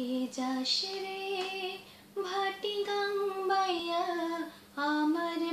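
A woman singing a Bengali folk song unaccompanied, in long drawn-out phrases with a short breath about two seconds in.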